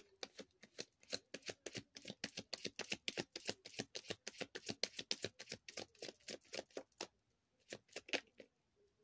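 A tarot deck being shuffled by hand: a fast run of card flicks that stops about seven seconds in, with a few more flicks shortly after.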